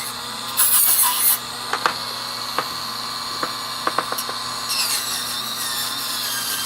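A small high-speed power tool running with a steady high whine while sanding a carved wooden piece to knock down raised wood fibres. There is a loud hiss about a second in and a few sharp clicks in the middle.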